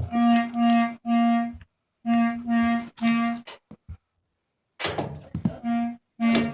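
Cordless drill with a driver bit backing out screws in short trigger bursts: a steady motor whine that starts and stops over and over, three pulses, a pause, three more, then a few more near the end with rattling as a screw comes loose.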